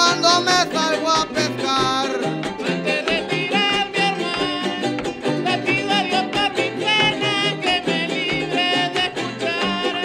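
A men's voice singing a Spanish-language folk song over fast, steady strumming of small guitars.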